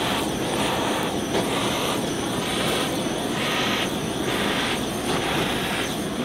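Handheld butane kitchen torch burning with a steady hissing roar of flame as it sears cubes of ahi tuna. The upper hiss swells and fades about once a second.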